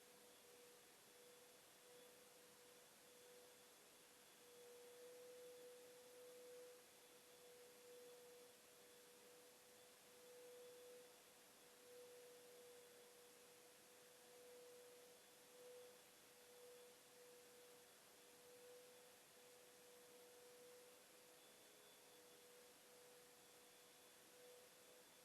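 Near silence: room tone with a faint, steady mid-pitched tone that swells and fades slightly, and a fainter high tone above it.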